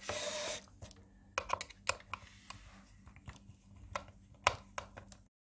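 Hard plastic clicks and taps as hands work apart the housing of a flush-mount electric hook-up inlet, after a short rustle at the start. The sound cuts off just before the end.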